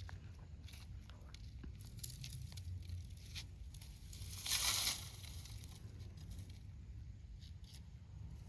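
Rustling and small clicks of things being handled, with one louder tearing or crinkling rustle lasting about half a second, near the middle.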